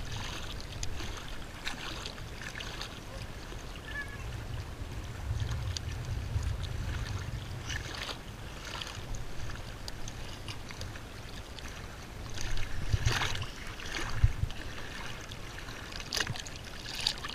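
Water lapping and sloshing against the hull of a small boat, over a steady low wind rumble on the microphone, with a few brief splashes or knocks scattered through.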